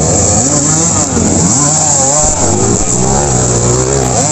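Dirt bike engines revving, several at once, their pitch rising and falling unevenly.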